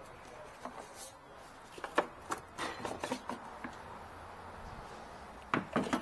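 Scattered clicks and knocks from hand tools and parts being handled: a cluster about two to three and a half seconds in and a louder pair near the end.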